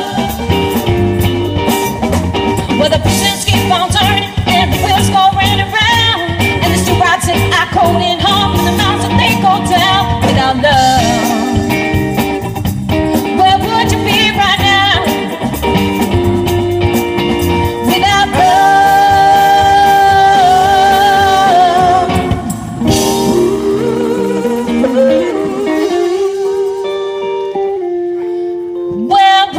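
Live pop-rock band playing an instrumental section, with saxophone playing the lead over electric guitars, bass guitar and drums. About 23 seconds in the full band drops away, leaving a sparse passage of a few notes.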